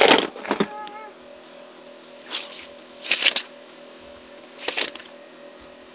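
Items being rummaged through and handled in a shoebox: a loud rustle at the start, then a few short rustles and crinkles of paper and plastic.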